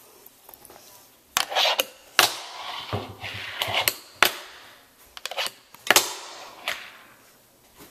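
Fingerboard clacking on a desk and a metal rail: several sharp clacks of the small wooden deck and its wheels popping and landing, with short scraping slides between them.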